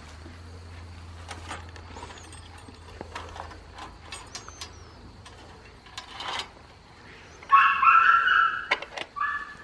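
A dog whining, two high-pitched cries near the end, the first lasting over a second. Before that there are scattered light clicks and rustles.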